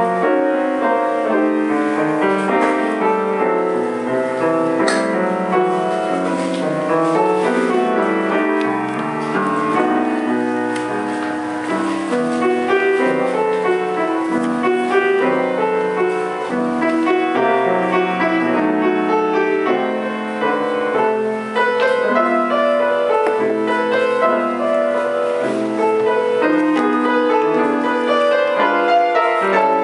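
Grand piano played solo: an unbroken stream of chords and melody notes at an even loudness.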